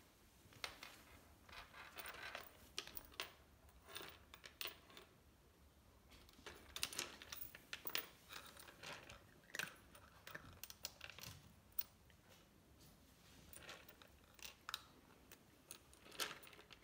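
Bengal cat crunching dry kibble from a feeder bowl: faint, irregular crunches and clicks, several a second in clusters.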